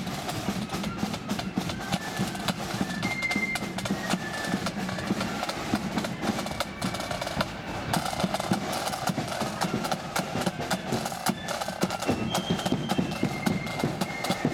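Marching flute band playing: flutes carry a high tune over side drums beating a steady march rhythm.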